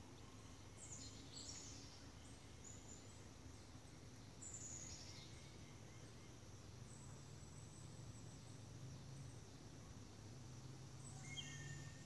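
Faint woodland ambience: a few short, high bird chirps that drop in pitch, about a second in and again near four and a half seconds, with more chirps near the end, over a faint steady low rumble.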